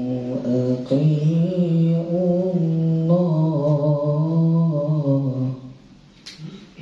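Man reciting the Quran (tilawah) solo in a melodious chanted style into a handheld microphone: one long, ornamented held phrase that climbs higher about three seconds in and ends about five and a half seconds in. A short click follows near the end.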